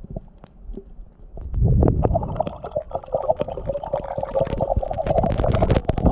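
Muffled underwater sound of a hand spear being thrust into a fish: scattered clicks at first, a low rush of water about one and a half seconds in, then many knocks and clicks over a wavering hum as the speared fish is held on the shaft.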